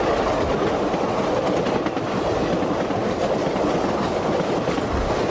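Streamlined passenger cars rolling past at speed close by: a steady rush of steel wheels on the rails.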